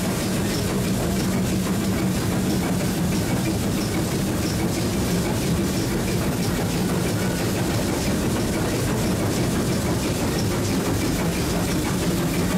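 Footplate noise of GWR Modified Hall steam locomotive 6990 on the move: a steady, loud rumble and hiss in the cab, with faint evenly spaced ticks.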